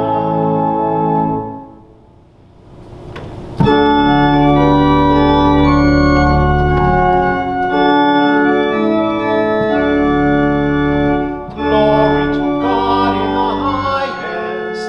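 Organ playing slow, held chords. The chord fades away about a second and a half in, and the organ comes back in loudly about two seconds later.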